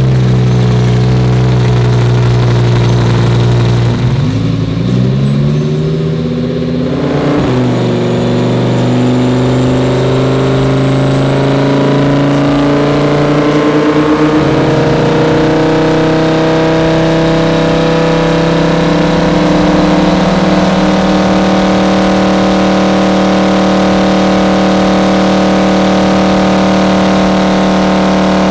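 Supercharged Lamborghini Huracán V10 running loud on a chassis dyno through a custom titanium center-mount exhaust. The revs dip about four seconds in, then climb slowly and evenly through the rest.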